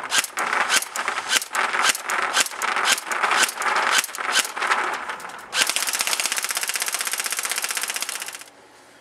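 G&G Top Tech T4-18 airsoft electric rifle with pneumatic blowback firing separate shots, about three a second, each with the bolt cycling. About five and a half seconds in it switches to a rapid full-auto burst of about three seconds that cuts off suddenly.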